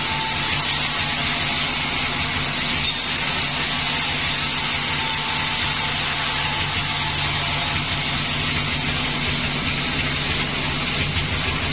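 Sawmill machinery running steadily: a constant motor drone at an unchanging pitch, with a steady hiss over it.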